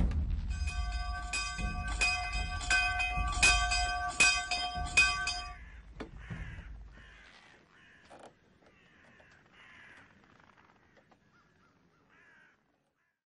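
Eerie soundtrack: a deep rumble under ringing bell tones struck about every three-quarters of a second, then crows cawing several times, growing fainter.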